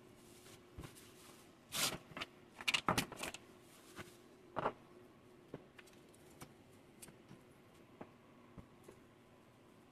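Handling noises on a wooden tabletop: irregular knocks and clicks, loudest in a cluster about two to three seconds in and again near the middle, then a few light ticks, over a faint steady hum.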